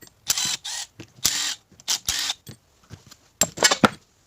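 Hand tools working metal parts of a sawn-open A/C compressor: three scraping strokes, then a quick run of sharp metal clicks and clanks near the end.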